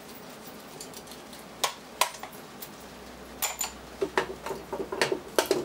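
Metal parts clinking and knocking on a steel workbench as the coil assemblies of an industrial vibratory feeder are handled: a few sharp clicks in the first half, then a quicker run of clinks over the last two seconds.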